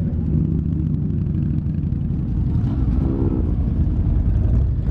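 A line of motorcycles, cruisers among them, rumbling past at low speed as they pull away one after another; engine notes swell and fade, with one standing out about three seconds in.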